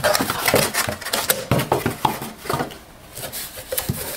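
Cardboard box flaps and packing handled by hand as a box is opened: a quick run of rustles, scrapes and knocks, busiest in the first two and a half seconds, then a few sparser ones.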